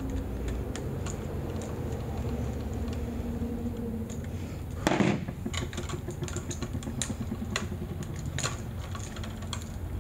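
Light irregular clicks and taps of a screwdriver and copper wires on a wall switch's terminal screws as the wires are unhooked and pulled free, with one louder short knock about halfway through, over a low steady hum.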